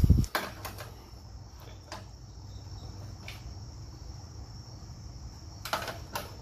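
A heavy thump, then scattered light metallic clicks and a short clatter near the end: the valve cover being set back on the Mustang's inline-six and its bolts handled. A steady faint high-pitched chirring runs underneath.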